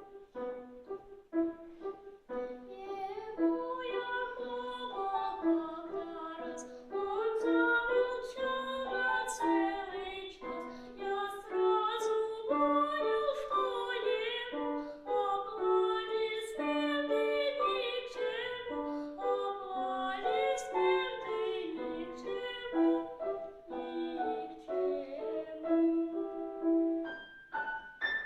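A young boy singing a children's song to piano accompaniment, the piano starting alone for the first couple of seconds before the voice joins.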